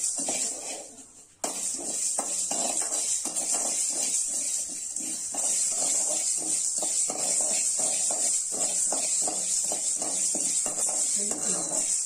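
A steel spoon stirring and scraping mustard seeds, black peppercorns and rock salt as they dry-roast in a metal kadai, a few strokes a second, over a steady high hiss.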